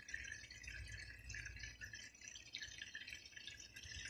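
Water running from a garden hose into the earth basin around a shrub: a faint, steady trickle.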